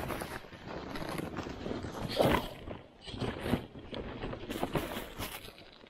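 Heavy canvas snowmobile cover rustling and scraping as it is pulled and smoothed over the sled, with boots crunching in snow; the loudest rustle comes about two seconds in.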